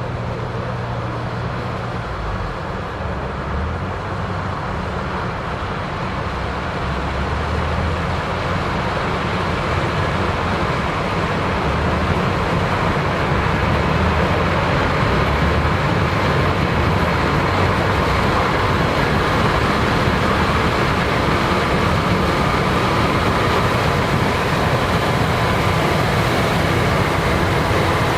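Combine harvester running as it harvests corn, with engine and threshing noise. It grows louder over the first dozen seconds as it nears, then holds steady.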